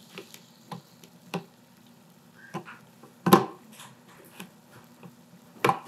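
A few faint, scattered clicks and taps in a quiet small room, the loudest a little past halfway.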